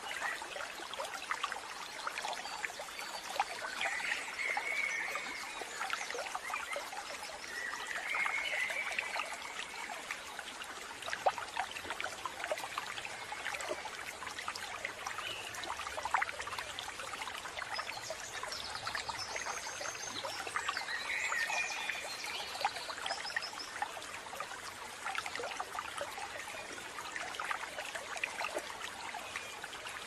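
Steady trickling, water-like ambience full of fine crackles, with a few short bird calls now and then.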